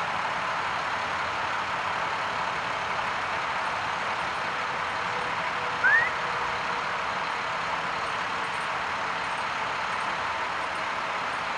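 Steady running noise of a car, with one short rising chirp about six seconds in.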